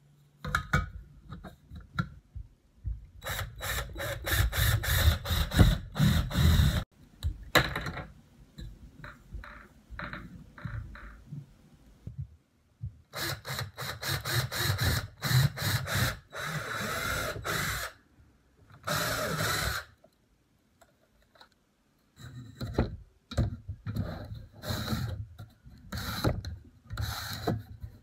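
Cordless drill running in several bursts of a few seconds each, driving a homemade drill-powered saw through a pine board, with brief quiet spells between the bursts.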